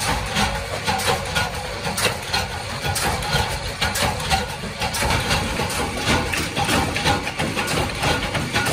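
Belt-driven flywheel power press running: a steady low drone from the motor and flywheel under a quick series of metallic clanks, about two or three a second.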